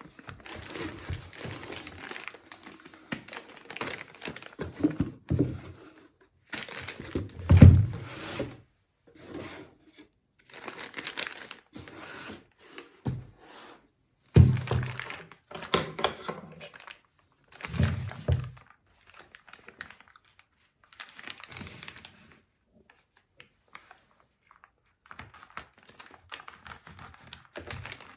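Packaging crinkling and tearing in irregular bursts as it is handled and opened, with a few louder thumps among the rustling.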